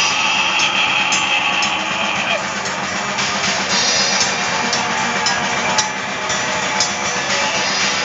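Metal band playing live in a small rehearsal room: electric bass, a drum kit with repeated cymbal hits, and a harsh shouted vocal over it.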